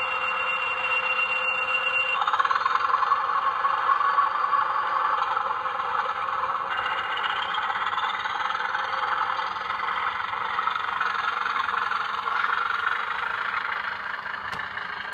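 Digitrax sound decoder in a Lima model class 20 diesel locomotive playing diesel engine sound through its small speaker: a steady engine noise with a high, held tone that stops about two seconds in, then whining tones rising in pitch at that point and again about seven seconds in. It falls away right at the end.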